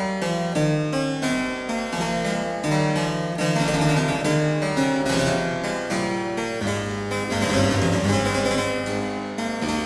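Harpsichord music: quick runs of plucked notes, with a low bass note held from about seven seconds in until near the end.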